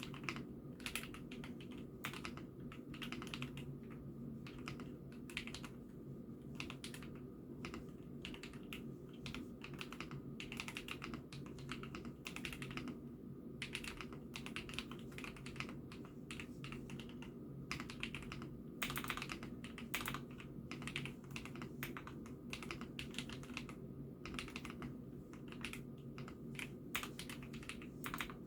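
Typing on an IKKI68 Aurora mechanical keyboard: a steady stream of quick, irregular keystroke clacks, with a few short pauses, picked up by a phone microphone over a low steady hum.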